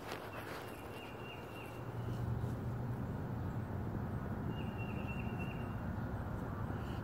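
Outdoor ambience: a small bird gives a brief high chirping trill twice, over a steady low hum that comes in about two seconds in.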